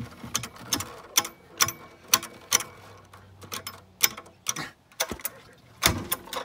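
Vintage Wright power blade saw's two-stroke engine being pull-started: the recoil starter and engine turn over with a run of sharp clicks and rattles, about two a second, with a louder clatter near the end. The engine does not catch.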